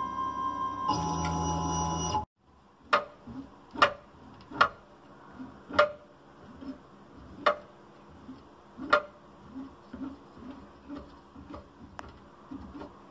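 CNC router X-axis stepper motor whining with several steady tones as it loses steps, the pitch shifting about a second in before cutting off. Then the switched-off stepper motor, worked by hand, gives sharp uneven clicks, loud ones about once a second with fainter ones between: a sign of something mechanically wrong in it.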